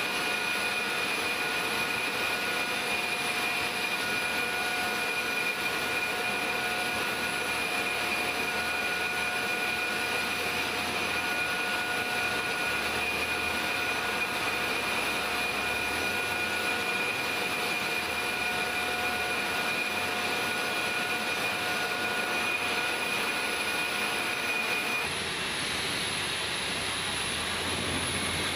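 Aircraft jet turbine running steadily: a whine of several steady high tones over a broad rush. The whine drops out near the end, leaving the rush.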